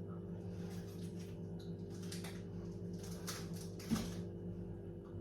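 Steady low electrical hum, with a few faint light rustles and taps and one soft knock about four seconds in.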